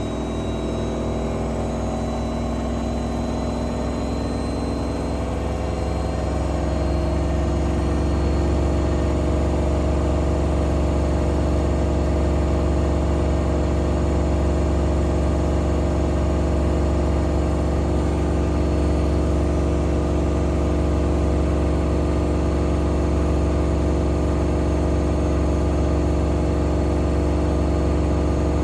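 Washing machine running noisily with a steady motor hum. About six seconds in it speeds up and grows louder, then holds at a steady, louder hum.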